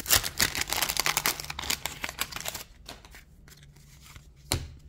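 Wax-paper wrapper of a 1987 Donruss baseball card pack being torn open and crinkled for about two and a half seconds, then quieter handling of the cards with one sharp click near the end.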